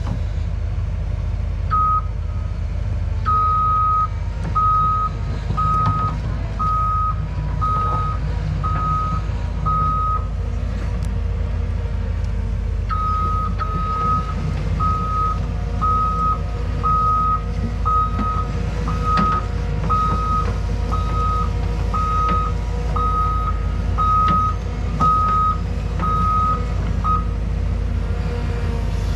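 Cat excavator's diesel engine running with a steady low rumble while its travel alarm beeps about once a second, showing the machine is tracking. The beeping stops for a few seconds partway through, then resumes.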